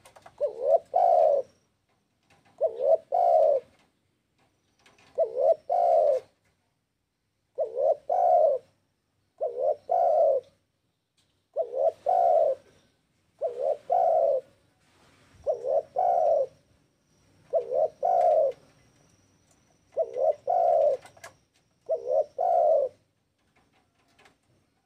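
Spotted dove (tekukur) cooing in full breeding voice: a short phrase of two or three coos, repeated about every two seconds, eleven times in all.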